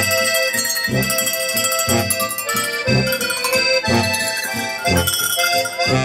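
A live band playing traditional German-style folk music, led by accordion over a steady bass beat.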